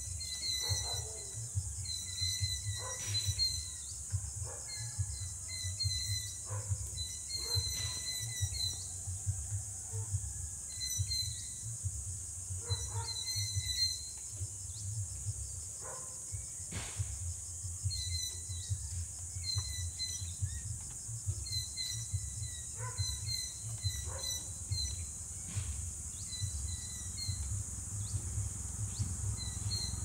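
Small birds chirping, short calls repeated many times, over a steady high hiss and a low rumble.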